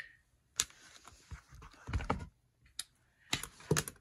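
Scattered light clicks and taps from handling things on a desk, with a quick cluster of clicks near the end and quiet between them.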